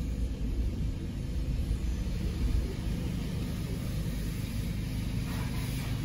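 Car engine and cabin rumble, low and steady, heard from inside the car as it rolls slowly into a car wash bay. A hiss rises near the end.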